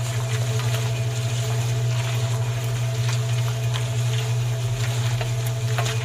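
Small electric motor of a miniature tin-can concrete mixer running steadily, turning its drum, a constant hum with a few light irregular ticks.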